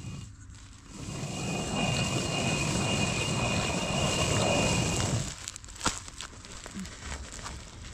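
Hand-turned stone quern grinding grain: a steady gritty rumble of stone rubbing on stone for about four seconds, stopping about five seconds in. A few light knocks follow.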